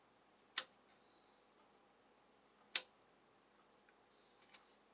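Thumbwheel voltage-setting switch on a Solartron AS1414.2 bench power supply clicking as a finger steps the digit up: two sharp clicks about two seconds apart, with a faint tick near the end.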